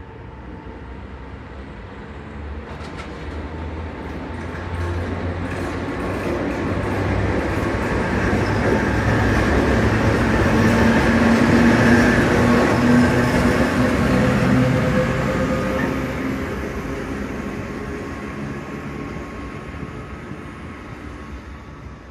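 Class 230 'Ludmilla' diesel locomotive 230 077 passing close under power, its heavy diesel engine drone swelling as it approaches, loudest about halfway through as it goes by, then fading as it pulls away.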